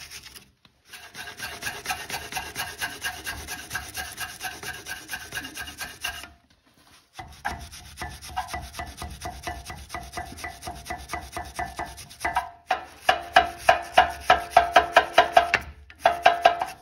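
Small metal wire brush scrubbing rust and crust off the pad sliding surfaces of a Lexus GX470 front brake caliper, so the new pads can slide freely. Quick back-and-forth scraping strokes with a few short pauses; the strokes grow louder and more distinct, about four a second, in the last few seconds.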